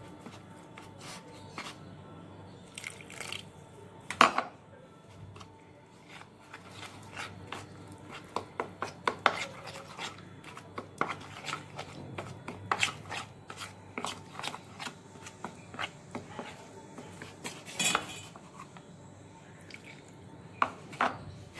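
Metal spoon scraping and clicking against a plastic bowl while stirring dry spice powders with water into a paste. The scrapes and clicks come irregularly, with a louder knock about four seconds in and another near the end.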